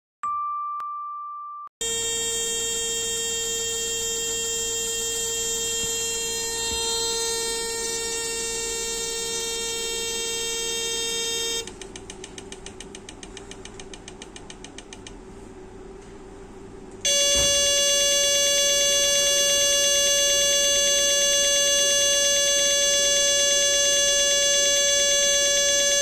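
A short electronic tone opens, then the piezoelectric actuators of a dual rotary table run with a steady, high-pitched buzzing whine. About 12 s in it drops to a quieter, rapid, even ticking. About 17 s in it switches to a louder, slightly higher-pitched whine that holds to the end.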